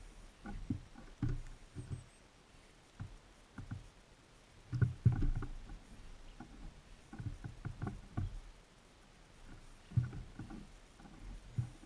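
Birds pecking seed and hopping about on a bird feeder right beside the microphone: irregular dull taps and knocks coming in clusters, with the loudest about five and ten seconds in.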